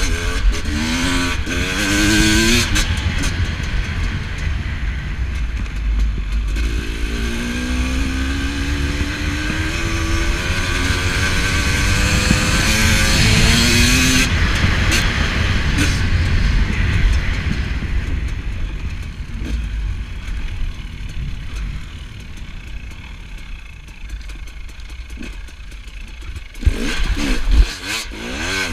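Enduro dirt bike engine pulling through the gears, its pitch climbing and then dropping at each shift, with a long rising pull partway through, over heavy wind rumble on the mic. Near the end there is a burst of knocks and clatter as the bike goes over rough ground.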